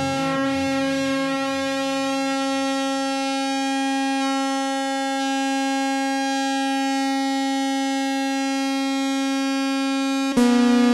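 Behringer TD-3-MO, a TB-303-style bass synthesizer, holding one long buzzy note rich in overtones. Under it a lower pulsing sequence fades away over the first few seconds, and about ten seconds in a rhythmic arpeggiated pattern starts abruptly.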